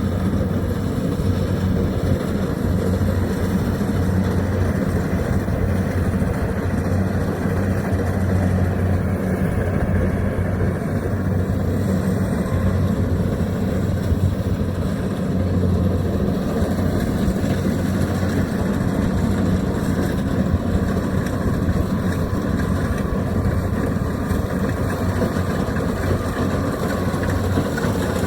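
Engine of a Kubota rice reaper running steadily, an even low hum.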